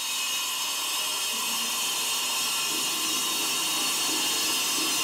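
Large angle grinder cutting into a brick wall: a steady, high grinding whine that starts suddenly.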